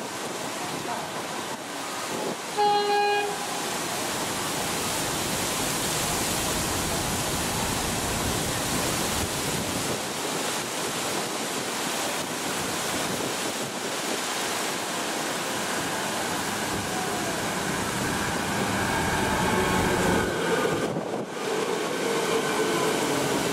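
Suburban electric train running on the rails with a steady rushing noise, its horn giving one short toot about three seconds in.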